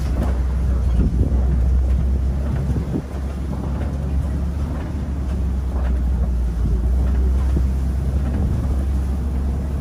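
Open-sided safari ride truck driving along, its engine and tyres making a steady low rumble, with wind buffeting the microphone.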